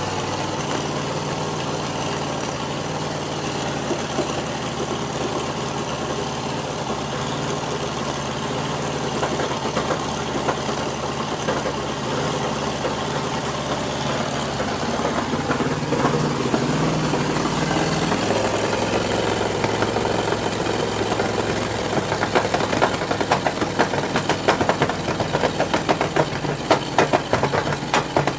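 270 Hemi V8 with a Cam Grinders Molina cam running at a fast idle just after start-up. About two-thirds through, the idle drops lower and turns lumpy, with uneven sharp pops: the cam's cackle.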